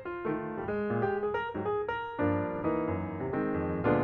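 Background piano music: a melody of quick notes over held chords.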